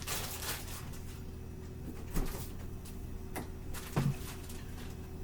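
A few light knocks and clicks from handling food and utensils while topping a pizza, over a steady low hum.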